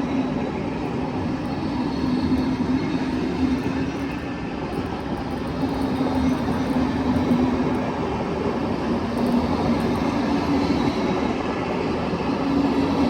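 Electric passenger train standing at the platform, running steadily with a noisy hum. A low drone fades in and out every few seconds.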